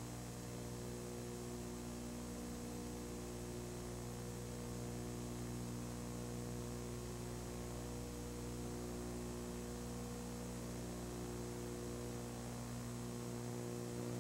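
Low, steady electrical hum with a faint hiss, unchanging throughout.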